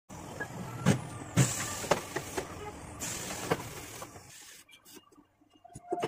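Several clunks and knocks as a motorcycle wheel is handled and set onto a tyre changer's turntable, over a steady hiss that comes in stronger surges twice. It goes quiet apart from faint clicks for the last couple of seconds.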